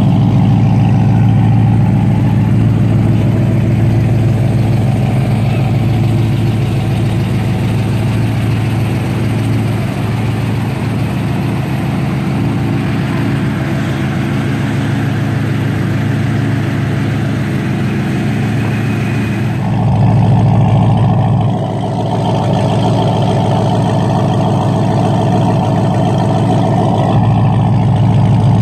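A 2004 Corvette C5's LS1 V8, fitted with Trick Flow heads, a Comp cam and Kooks headers straight-piped with no mufflers, idling steadily. It turns briefly louder about two-thirds of the way through.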